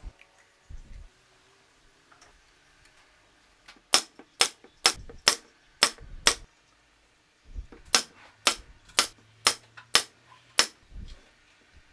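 Nails being driven into wood: two runs of about six sharp strikes each, roughly two a second, with a pause between the runs.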